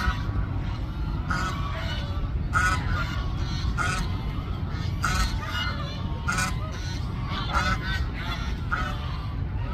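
Waterfowl honking: short, nasal calls repeated about once every second and a bit, around eight in all, over a steady low rumble.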